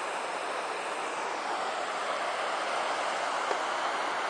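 Fast-flowing river rushing steadily over shallow rapids.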